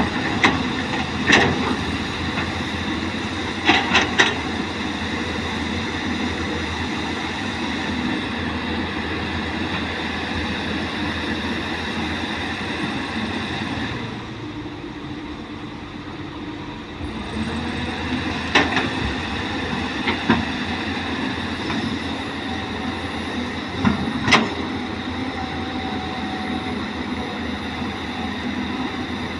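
Caterpillar excavator working: a steady drone of engine and hydraulics with sharp metallic clanks now and then, about five in all, and a few seconds midway where it runs quieter.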